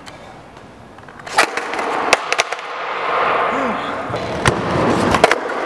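Three-truck skateboard clattering on a concrete floor as a trick is missed: a few sharp clacks about a second and a half in and again near the end, with the rough noise of wheels rolling on concrete.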